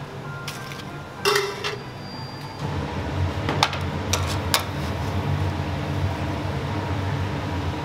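Restaurant kitchen clatter: metal dishes and utensils clanking, with a loud clank about a second in and sharp clicks a few seconds later. A low steady hum comes in about two and a half seconds in.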